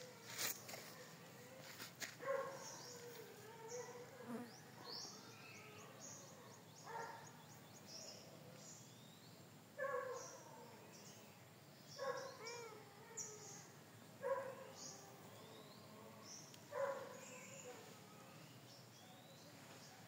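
Domestic cat meowing, a series of short meows every few seconds, about seven in all.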